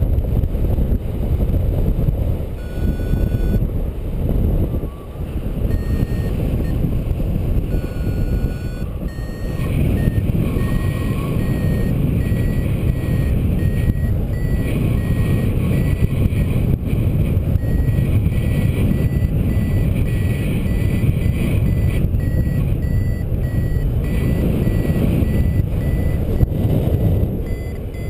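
Wind rushing over the microphone in flight, with a paragliding variometer beeping: a few short high beeps in the first several seconds, then from about ten seconds in a fast, steady run of beeps at one pitch, the vario's signal that the glider is climbing.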